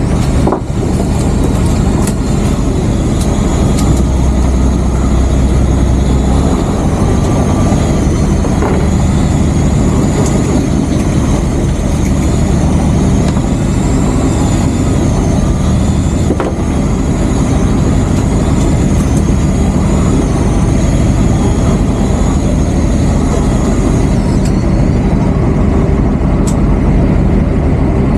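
Fishing boat's engine running steadily and loud, a continuous low drone.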